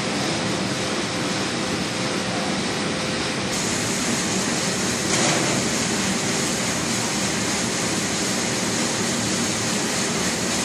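Industrial nut-frying machine running, a steady hiss and hum, with a brief clatter about five seconds in.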